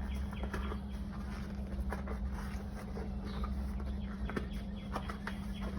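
Hands working a rubber bicycle inner tube into a tire, making scattered light clicks and rustles over a steady low hum.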